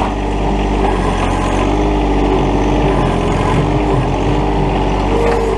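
John Deere 1023E compact tractor's three-cylinder diesel running steadily while it works a snow pile with its loader; the engine note dips in the middle and comes back up near the end.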